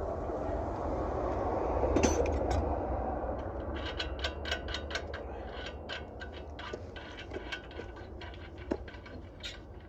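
Ratchet wrench clicking in quick runs while the wheel's lug nuts are run down, after a brief scraping rush about two seconds in.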